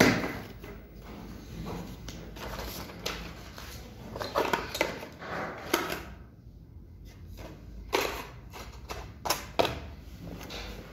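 Paper and a small cardboard box being handled: a string of short rustles and sharp knocks, with a quieter stretch in the middle.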